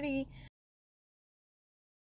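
The end of a woman's spoken word, then complete digital silence with no room tone from about half a second in.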